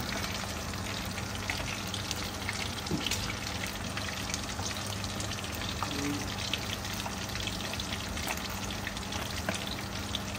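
Red tilapia frying in hot oil in a wok: a steady sizzle with scattered crackling pops, over a steady low hum.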